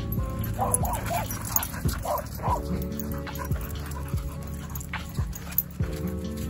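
A dog barks about five times in quick succession, from about a second in to halfway through, over background music.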